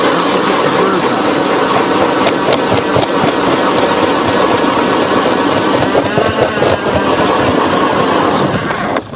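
Ion 10-inch electric ice auger drilling through lake ice: a steady motor whine mixed with the blades grinding and chipping ice. It stops abruptly near the end. The blades have had their burrs filed off, so the cut goes slower and needs more downward pressure.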